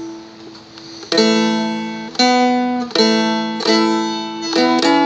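Seagull Merlin, a small four-string dulcimer-type instrument, strummed in open D tuning. A chord rings and fades for about a second, then it is strummed about once a second through a chord change, with a few quicker strums near the end.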